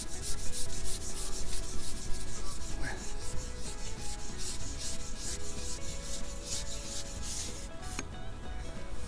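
Rapid rubbing and scraping close to the microphone, about four strokes a second, that stops about eight seconds in with a single click, over a low wind rumble: clothing and pole handling against the worn camera while a hooked roach is played on a fishing pole.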